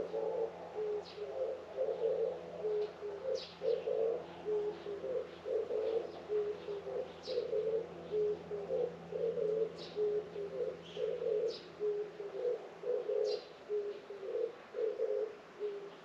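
A dove cooing in a steady run of low repeated notes, about one phrase a second, stopping just before the end. Small birds give short, high chirps over it now and then.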